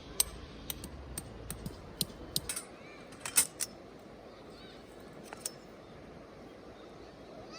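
A quick run of sharp clicks and clinks, as of small hard items being handled, clustered in the first three and a half seconds, the loudest near the end of the run, then one more single click a couple of seconds later.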